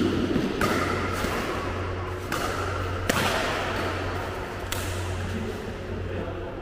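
Badminton rackets striking a shuttlecock in a doubles rally: about four sharp hits at uneven intervals, each with a short echo off the hall walls, over a steady low hum.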